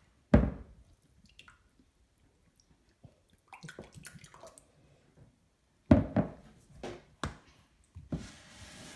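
A few sharp knocks and thumps, the first just after the start and three more about six to seven seconds in, with liquid sounds between them and a short hiss near the end.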